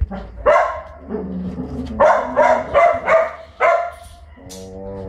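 A puppy barking: a single bark, then a quick run of about four yappy barks a second and a half later.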